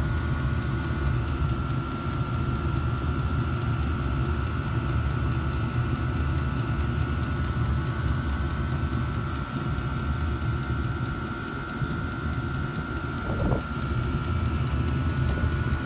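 5 kW Chinese diesel air heater running steadily: a low rumble with a steady whine, over the fast, even clicking of its fuel dosing pump, which is pumping at the rate it should.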